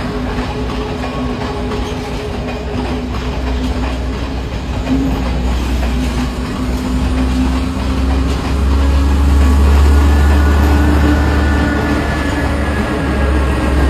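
Sri Lanka Railways S13 diesel multiple unit running on the track: a steady diesel engine drone with wheel clatter on the rails, growing louder about eight seconds in.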